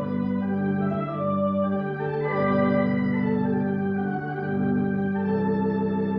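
Sampled Wurlitzer theatre pipe organ played from a keyboard: held chords that change every second or two.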